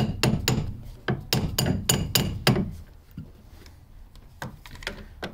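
Socket ratchet clicking on a track rod end nut as it is nipped up: a quick run of sharp metallic clicks, about four a second, for the first two and a half seconds, then a few scattered tool clinks near the end.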